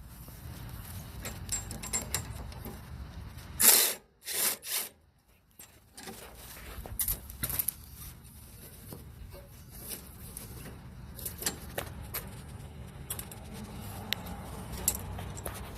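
Hand-tool work on a snowblower's metal housing while its cover bolts are taken out: scattered clicks and small metal rattles of the tool and bolts over a low rumble, with three short loud bursts about four seconds in.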